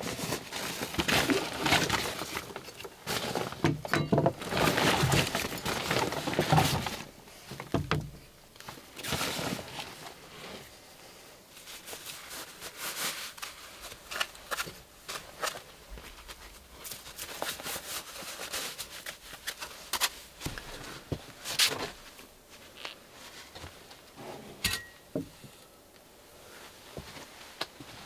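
Rustling of a backpack and its fabric as gear is unpacked by hand, with scattered knocks and clicks of items being set down on a wooden plank table. The rustling is busy for the first several seconds, then thins to occasional rustles and knocks.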